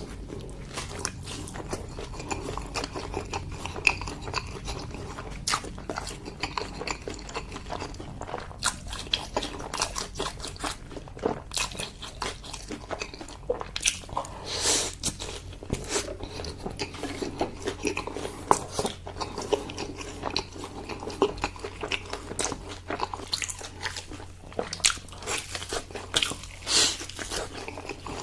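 Close-miked eating: a person biting and chewing food, with many irregular sharp clicks and crunches.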